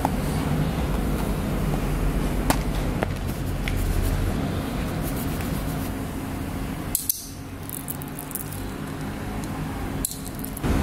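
A few light clicks from handling a gas blowback airsoft pistol magazine, over a steady low rumble in the background.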